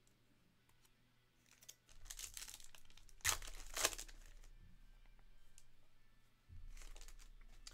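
Foil wrapper of a Panini Select basketball card pack being torn open and crinkled by hand. The crinkling starts about two seconds in, with two loud, sharp rips a little over three seconds in.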